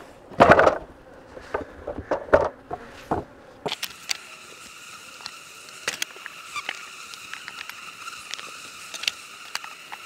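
Wooden beehive frames knocking and clacking against each other and the box as they are handled, with one louder thump about half a second in. From about four seconds in a steady high hum runs on under scattered small clicks.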